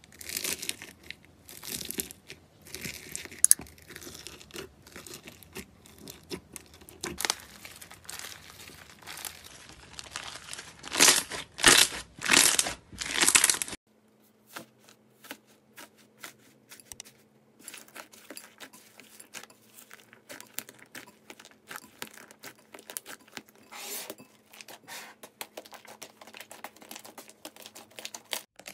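Fingers pressing and squishing foam-bead slime (floam) in a plastic tub, with dense crackling and crunching and several louder squeezes a little before the middle. After a sudden cut, fainter crackling and small pops as a softer slime is pressed and stretched by hand.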